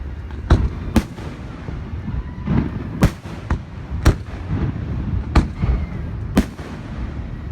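Aerial fireworks shells bursting, a string of sharp booms at uneven intervals, roughly one or two a second, over a constant low rumble.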